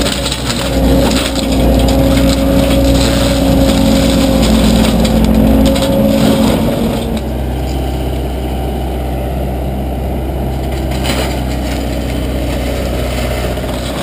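Excavator-mounted Advance Forestry RDM 34 mulcher head, driven by a hydraulic power pack, running under load and shredding brush: a steady engine-and-hydraulic drone with dense crackling of wood being chewed up. About halfway through the crackling drops away and a lower, steadier machine drone is left, with some crackle coming back near the end.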